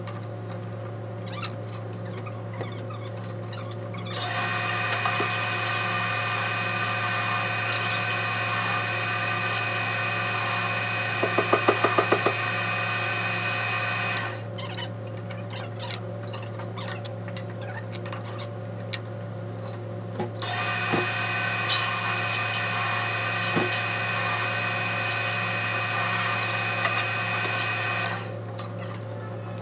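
Metal lathe drilling out a small metal part held in its four-jaw chuck with a twist drill in the tailstock, to enlarge it for a larger 7/16 in. idler-pulley bolt. It runs in two stretches, starting about four seconds in and again about twenty seconds in. Each is a steady gear whine with high squeals as the bit cuts and a short fast rattle midway through the first, over a low steady hum.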